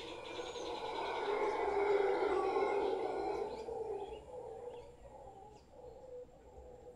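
Mantled howler monkey howling: one long call that swells over about two seconds and fades away by about four seconds in, with small birds chirping.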